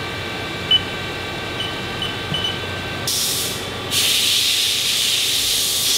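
Steady hum from a CNC mill, with a click and a few short high beeps from its control panel keys. From about three seconds in, loud bursts of hissing air, the longest lasting about two seconds.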